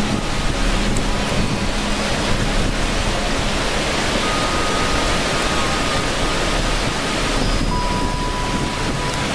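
Waterfall: a steady, even rush of falling water with no breaks.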